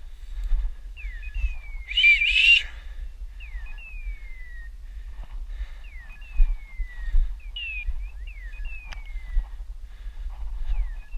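A hunting dog's beeper collar sounding its raptor-cry signal: a short rising note then a long descending hawk-like cry, repeating every two and a half seconds. A louder two-part whistle-like call comes about two seconds in.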